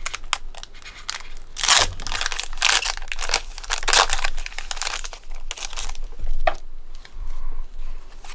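Foil Pokémon booster pack wrapper being torn open and crinkled, a series of rasping tears and crackles, busiest in the first half.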